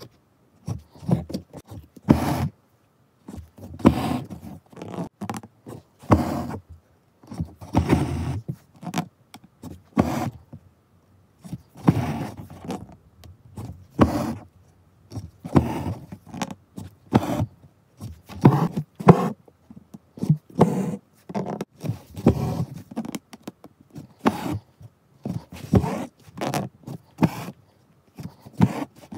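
Hands handling embroidery cloth close to the microphone: repeated short rubbing and scraping as the needle and thread are drawn through the cotton fabric, each stroke a fraction of a second to about a second, with brief silences between.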